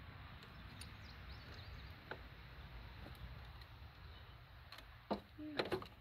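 Wrench working on a truck battery terminal to loosen the cable clamp: a soft click about two seconds in, then a few sharp metallic clicks near the end, over a faint steady hiss.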